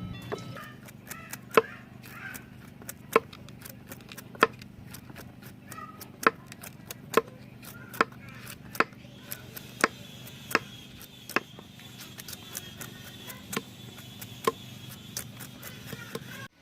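Knife chopping on a cutting board: sharp, separate strokes at an uneven pace, roughly one to two a second.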